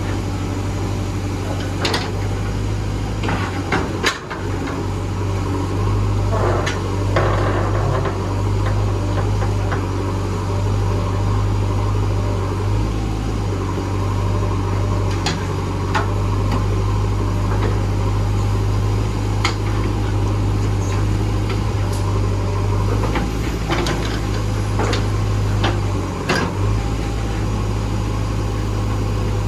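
Diesel engine of a JCB backhoe loader running steadily while digging, with a scattering of sharp knocks and clanks, about eight over the half minute.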